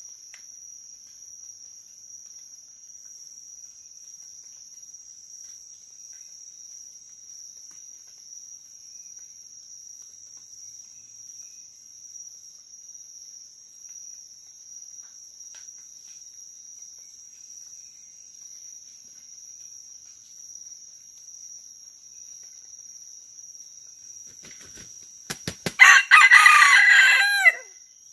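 Red junglefowl (labuyo) rooster crowing once near the end, a short crow that breaks off abruptly, just after a few quick thumps. A steady high insect drone runs underneath.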